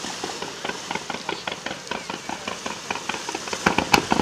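Fireworks crackling in a dense run of small, quick pops, with a few louder bangs near the end.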